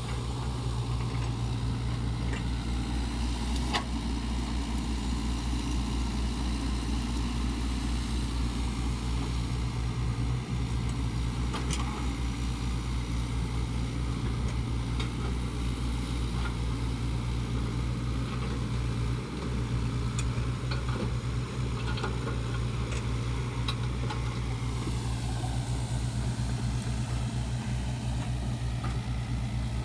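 Sany SY55C mini excavator's diesel engine running steadily, with a few short sharp clicks now and then.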